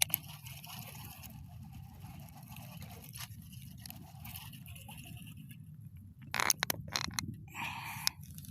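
Fishing reel being cranked with a steady scraping rasp as a snakehead is fought in after the strike. A cluster of sharp knocks and clatter comes about six seconds in, and a brief rush of noise comes near the end.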